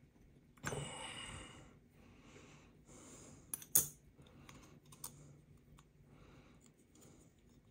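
Small metal folding-knife parts (handle scales, liners, pocket clip) clicking and tapping together as they are handled and fitted during reassembly. One sharp click a little under four seconds in is the loudest, with a few lighter clicks after it, and a short breath about a second in.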